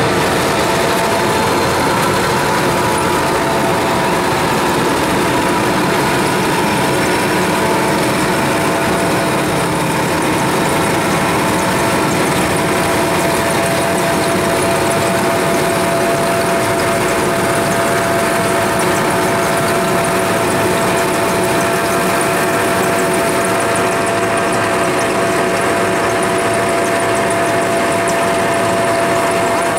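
Kubota rice combine harvester's diesel engine running steadily as the machine crawls on its tracks, with a steady whine over the engine that grows stronger about halfway through.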